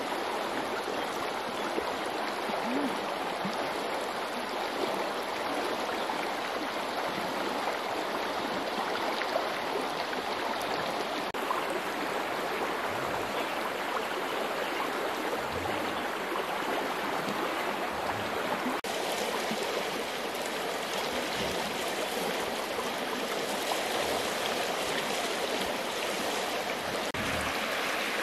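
A river flowing: a steady rush of water that shifts slightly in tone a few times.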